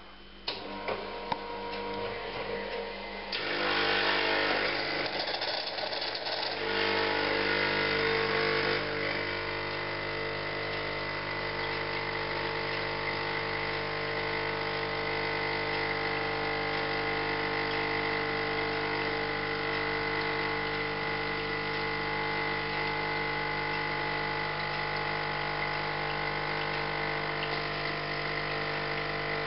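Quick Mill Monza Deluxe super-automatic espresso machine brewing a shot. A couple of clicks and a few seconds of louder, rougher whirring give way to the pump running with a steady hum while the espresso pours.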